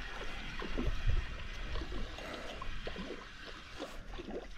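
Shallow water gurgling and sloshing in small, irregular splashes, over a low steady rumble.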